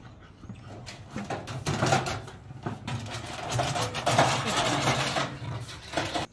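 Galvanized metal trash can clattering and scraping on its side as a bulldog scrambles into it, its claws scrabbling on the metal. A jumble of knocks and rattles that builds about a second in and stays loud most of the way, then cuts off suddenly.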